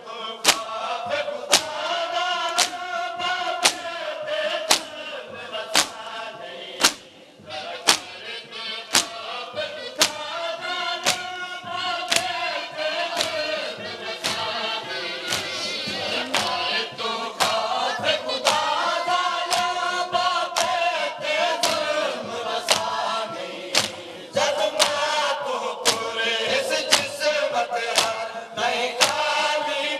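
A crowd of men chanting a noha lament in unison, kept in time by sharp, rhythmic chest-beating (matam) slaps about one and a half per second. The singing and slapping drop briefly about seven seconds in, then resume.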